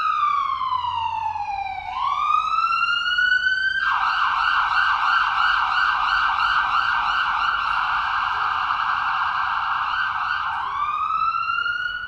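Electronic police-style siren: a slow wail that falls and rises, then about six seconds of a fast warbling yelp, then a slow rising wail again that fades out near the end.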